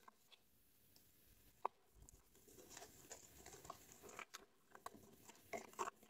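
Faint rustling and crinkling of a small toy package being opened by hand, with a few light clicks.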